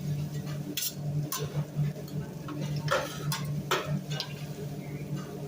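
Metal spatulas clicking and tapping on a steel teppanyaki griddle, about half a dozen irregular sharp clinks, over a steady low hum.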